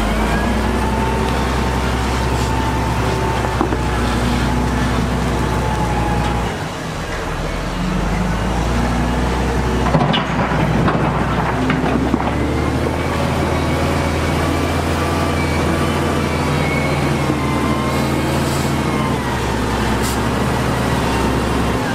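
Heavy diesel engines of dump trucks and a wheel loader running steadily, the engine pitch shifting as they work, with a sharp knock about halfway.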